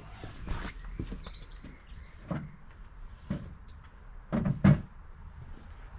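Scattered knocks and clunks of metal parts being handled, with a louder clatter about four and a half seconds in. Birds chirp briefly about a second in.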